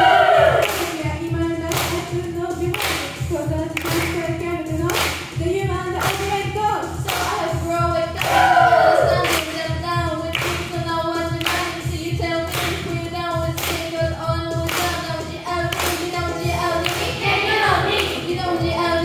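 Gospel choir singing a cappella over a held chord, with a lead voice rising above it near the start and again about halfway through. Steady hand clapping on the beat runs through it, roughly two claps a second.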